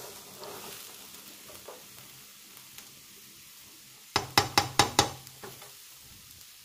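Boiled, hulled soybeans tipped from a stainless steel strainer into a hot non-stick pan, sizzling faintly as the wet beans start to dry out. About four seconds in, the strainer is knocked five times in quick succession against the pan to shake out the last beans.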